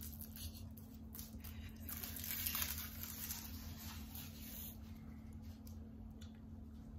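Faint crinkling and rustling as a blue plastic drinking straw is unwrapped and handled, thickest in the first few seconds and sparser after. A low steady hum runs underneath.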